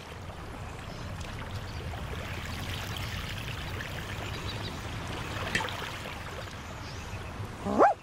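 Cartoon floodwater running steadily, with a cartoon dog giving a short yelp that rises and falls in pitch near the end.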